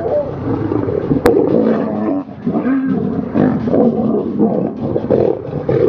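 Male lions fighting, growling and roaring without a break.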